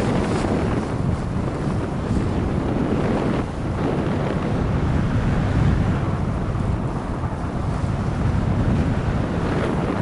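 Wind buffeting the microphone in flight, a steady, loud, low rushing with no breaks.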